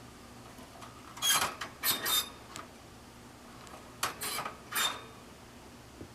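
Four short bursts of rustling and light clinking from a stainless steel bird cage.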